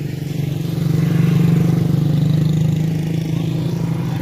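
Motorcycle engine running close by, growing louder about a second in and easing off near the end.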